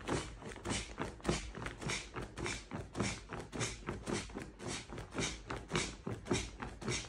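The built-in foot pump of an inflatable camping mattress being pressed over and over with a bare foot: the fabric crinkles and air is pushed into the pad with each press, about three a second. The mattress is being topped up because it slowly leaks.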